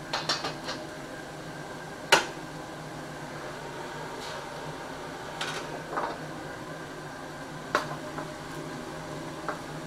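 Steady roar of a commercial wok range's gas burners, with several sharp metal clanks of wok and ladle, the loudest about two seconds in.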